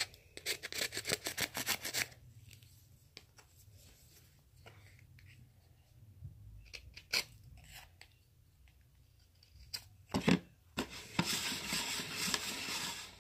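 A card scraping in quick repeated strokes for about two seconds, then a few light taps and a knock, and steady rubbing for about two seconds near the end.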